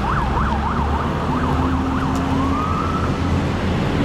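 An emergency vehicle's siren in a fast yelp, rising and falling about four times a second, then changing after about two and a half seconds to a slower rising wail that fades. A steady low rumble runs underneath.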